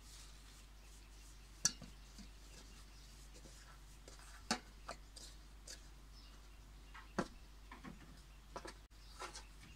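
Scattered light knocks and clinks of a metal bowl and a round metal tray as hands lift bread dough out of the bowl and work it on the floured tray. There are about eight short hits, the sharpest about two seconds in.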